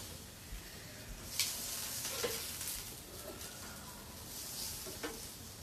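Sliced vegetables sizzling on a hot gas barbecue grill, with a few sharp clicks of metal tongs as the pieces are turned.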